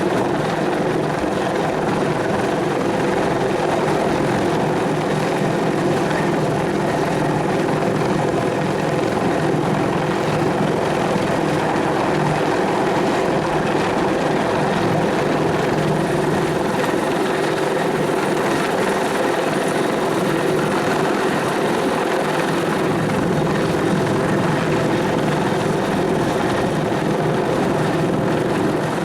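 Bell 412 helicopter running steadily, the whine of its twin turboshaft engines and the beat of its four-blade main rotor holding constant.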